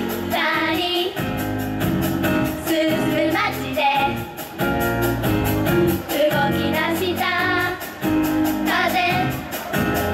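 Live Japanese idol-pop performance: young female voices singing into handheld microphones over pop backing music with a steady beat.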